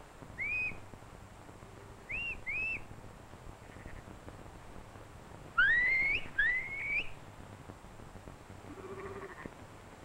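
A shepherd whistling command signals to a working sheepdog: a short rising whistle, then a quick pair about two seconds in, then two longer, louder rising whistles about six seconds in. A faint sheep bleat follows near the end.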